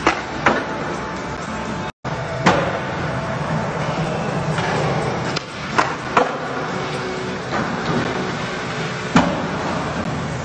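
Skateboard wheels rolling on smooth concrete, broken by about six sharp clacks as the board is popped, hits a ledge and lands. The sound cuts out briefly about two seconds in.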